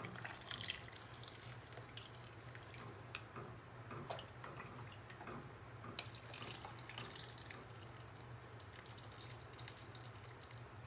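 Warm pickling brine poured from a ladle through a plastic canning funnel into jars of cucumber spears: faint trickling and dripping, with a few light taps.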